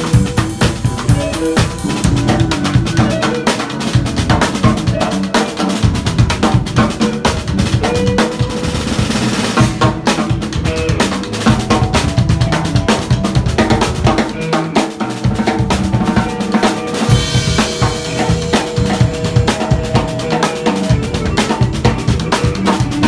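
Two drum kits played at once in an improvised drum duet: busy snare, bass drum and tom strokes with rimshots and cymbals, never letting up.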